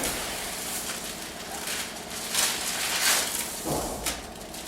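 Clear protective plastic film being peeled off the top of a window sill, rustling and crinkling, with a few louder crackles in the second half.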